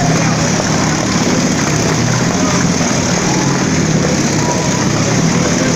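Motorcycle engines running steadily at high revs as the bikes circle the vertical wooden wall of death. The sound is loud and continuous, with no breaks.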